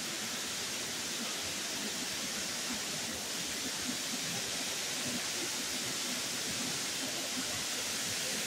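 Dry Falls waterfall pouring onto rocks close by: a steady, even rush of falling water and spray.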